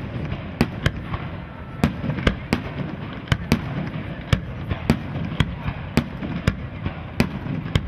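Fireworks display: a quick irregular run of sharp bangs, roughly two a second, over a continuous crackling rumble.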